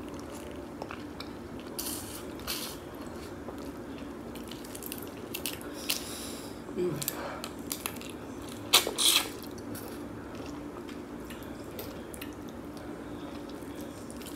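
Close-up mouth sounds of eating saucy seafood-boil shrimp by hand: wet sucking and lip smacks on the shrimp and sauce-covered fingers, with scattered soft clicks and the loudest slurps about nine seconds in.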